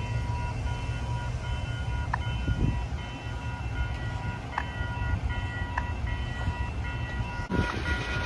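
A railroad crossing's new Western-Cullen-Hayes bell ringing steadily over the low rumble of a freight train's cars rolling through, with a few sharp clanks from the cars. A little over seven seconds in, the train sound turns abruptly louder and fuller.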